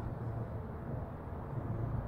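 Steady low hum and hiss of background room noise, with no distinct event.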